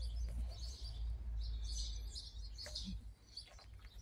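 Small birds chirping and twittering in short scattered calls, over a low rumble that drops away about three seconds in.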